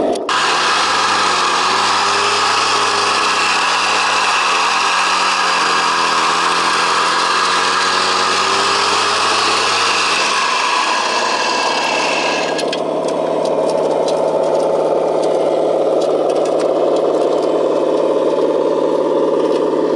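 Scale RC hydraulic construction machinery running: electric-driven hydraulic pumps whining with an engine-like hum whose pitch wavers. About twelve seconds in the sound changes to a steadier, lower hum.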